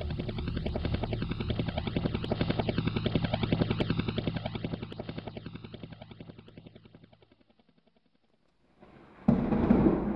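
A fast, even throbbing pulse like helicopter rotor chop, with a sweeping, swirling phasing, fading away over several seconds. After a second of near silence, a sudden loud rumbling burst cuts in near the end.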